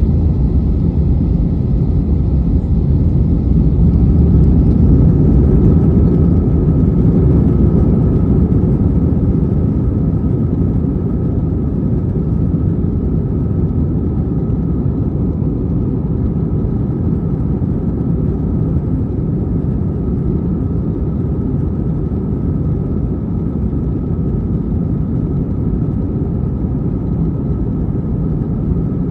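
Jet airliner cabin noise during takeoff and climb: the engines and rushing air make a steady deep rumble with a faint steady whine above it, swelling slightly about five seconds in, then easing a little.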